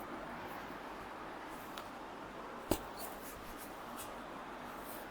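Handling noises during a chiropractic back treatment: faint scattered ticks over a steady hiss, with one sharp click about halfway through.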